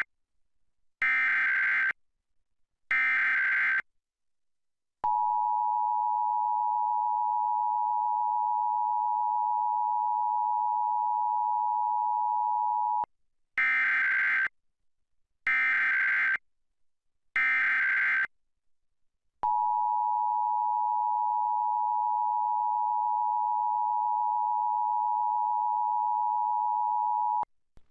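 Emergency Alert System test signal: short SAME digital header bursts, about a second each, then the steady two-tone EAS attention signal for about eight seconds. The sequence repeats: three more header bursts, then a second eight-second attention tone that cuts off just before the end.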